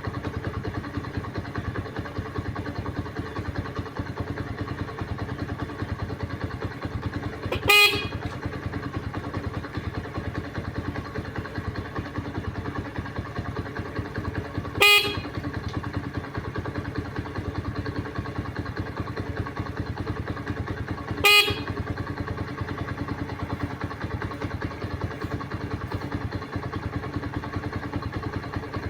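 Parrot mimicking a motorcycle horn: three short honks, about seven seconds apart, over a steady low rumble.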